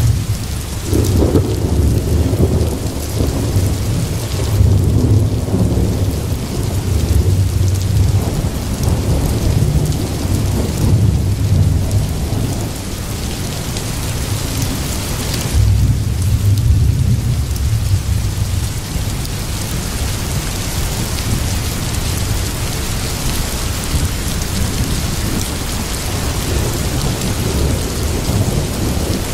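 Rain and thunder ambience: a steady hiss of rain with low rolls of thunder, the heaviest rumbling through the first dozen seconds and again about halfway through.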